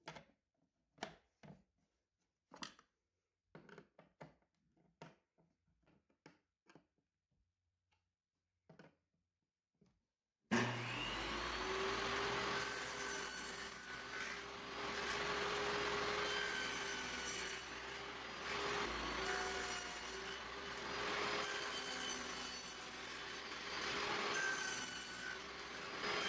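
Short scattered knocks and clicks of pine pieces being handled on the table saw top, then about ten seconds in a table saw with a 3/8-inch dado stack starts up and runs. Its steady hum rises and dips as pine boards are pushed through it, cutting dados.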